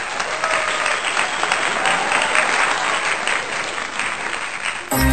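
A crowd applauding, a dense steady clatter of many hands clapping with a few voices mixed in, giving way to music just before the end.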